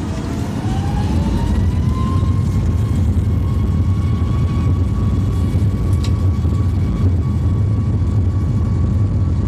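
Airliner's engines heard from inside the cabin during the takeoff roll: a whine that rises for about two seconds and then holds steady over a loud, steady low rumble, as the engines spool up to takeoff power.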